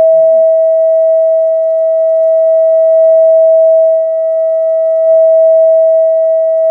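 Counterfeit JBL Xtreme Bluetooth speaker playing a loud, steady sine tone of about 700 Hz, with fainter overtones, held against a wine glass to shatter it by resonance; the glass does not break.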